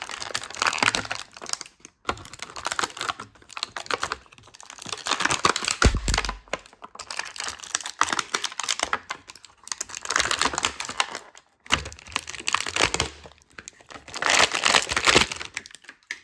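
Plastic toy packaging crinkling and crackling as an action figure is unboxed and freed from its straps, in spells of a few seconds with short pauses, and a dull thump about six seconds in.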